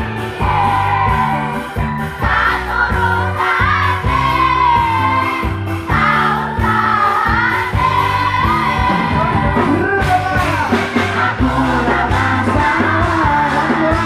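Loud live dangdut koplo music over a PA system: a vocalist sings a wavering melody over bass and drums, with the crowd singing along.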